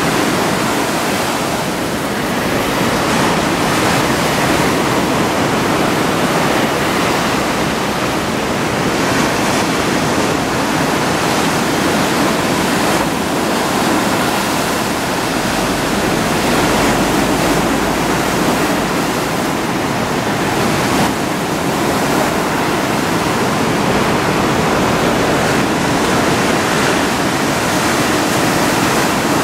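Big typhoon-swell surf breaking on the shore: a steady, loud wash of wave noise.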